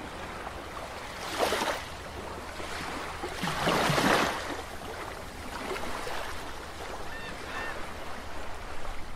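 Underwater-style whoosh sound effect: a steady water-like rush that swells twice, the louder swell about four seconds in, with a few faint short chirps near the end.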